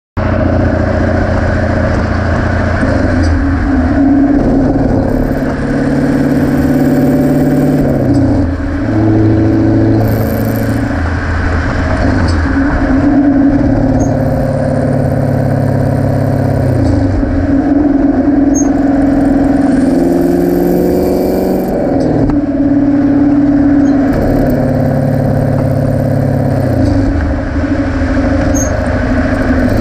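2018 Camaro SS 1LE's 6.2-litre V8 heard right at the tailpipe of its GM NPP active exhaust in sport mode, driven at light throttle through upshifts and downshifts: the engine note climbs and then drops back with each of several gear changes. In sport mode the exhaust valves open and close with every shift.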